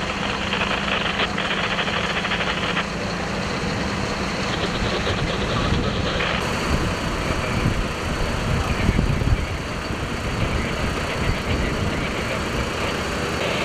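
Fire engine's diesel engine running steadily under a constant rushing noise, the sound changing abruptly about three and six seconds in.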